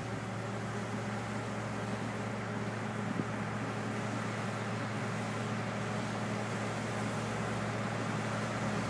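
John Deere 750J crawler dozer's diesel engine running steadily, a low even drone.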